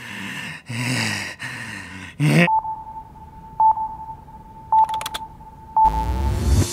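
About two seconds of harsh, noisy crunching as a hammer smashes an aluminium hard-drive enclosure. Then a steady electronic tone with a short beep about once a second, a few quick keyboard-like clicks, and near the end a rising synth sweep over a low rumble that leads into electronic music.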